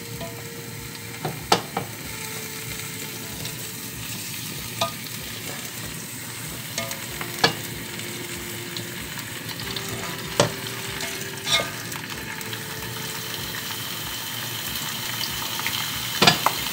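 Chicken pieces frying skin-side down in hot oil in a cast-iron casserole: a steady sizzle that grows slowly louder, broken by a few sharp pops.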